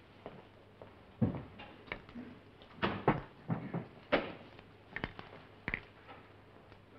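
Light clicks and knocks, spaced irregularly over a faint room hum: small objects being handled.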